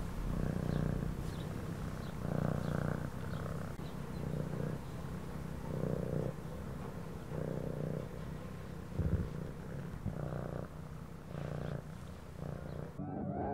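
Domestic cat purring: a low rumble swelling and easing again in repeated breaths.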